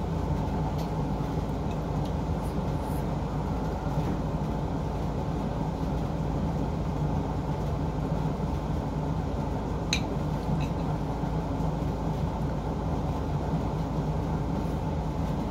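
A steady low mechanical hum, with a single light click about ten seconds in.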